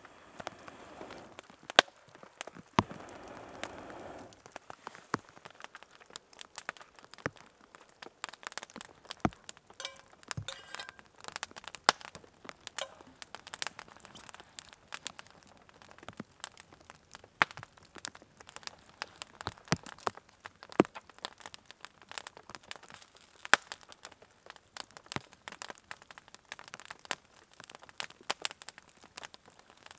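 Small wood campfire crackling, with frequent sharp pops and snaps. For the first few seconds a person blows steadily on the embers, a rushing breath sound that stops about four seconds in.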